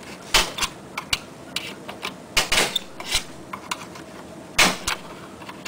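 Irregular clicks and taps of a small flathead screwdriver tip working a part sideways out of a sunroof guide track, with a few sharper clicks among them.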